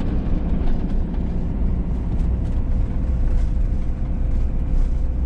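Motorhome engine and road noise while driving slowly: a steady low rumble with a faint steady hum above it.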